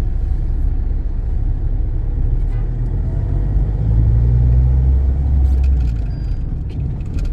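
Low rumble of a campervan's engine and road noise heard from inside the cabin while driving, swelling louder for about two seconds in the middle.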